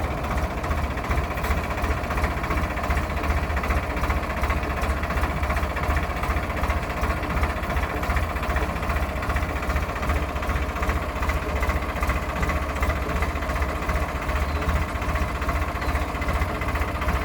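An engine running steadily at idle, a low, even drone that does not change.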